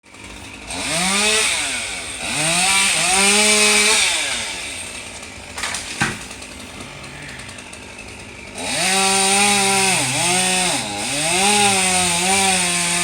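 Chainsaw revving up and down in bursts as it cuts, easing to a lower speed in the middle with a single sharp crack about six seconds in, then running at high revs again with brief dips.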